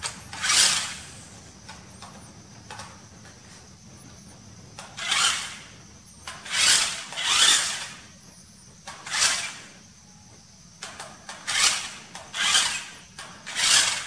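Remote-control rock crawler's electric motor and gearbox whirring in about eight short bursts as it is driven in spurts, with quieter gaps between.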